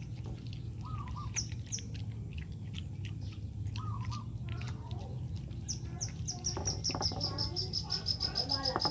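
Small bird chirping: a few separate high, falling chirps, then from about six seconds in a quick, even run of high chirps, about six a second, settling onto one pitch.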